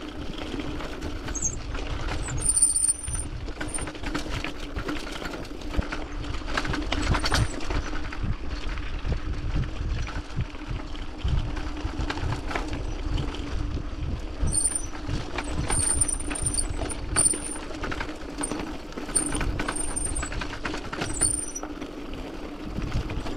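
Mountain bike rattling and knocking over a loose gravel track on a fast descent, with a steady low hum underneath. Short bursts of high-pitched brake squeal come early on, then more often through the second half.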